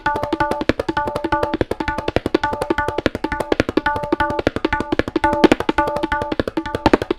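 A tabla pair played solo in a fast, even stream of strokes, the right-hand drum ringing at a clear pitch.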